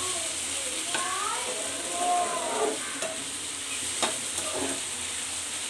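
A spatula stirring and scraping fried onion-tomato masala in a wok, with a few taps against the pan and brief squeaks as it scrapes. A steady hiss runs underneath.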